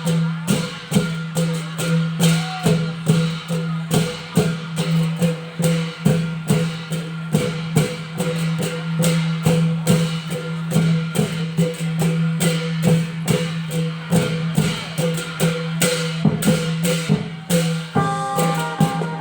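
Thai klong yao long-drum ensemble playing: drum strokes in a steady beat over a continuous low drone. Near the end a melody of held notes comes in.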